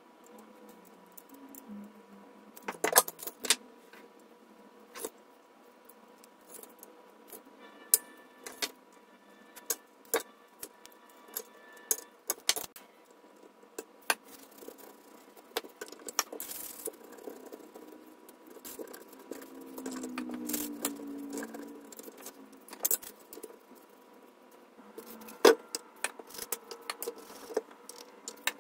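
Irregular small clicks, taps and light clatter of hand tools and a circuit board being handled on a silicone work mat, some with a short metallic ring, over a faint steady hum.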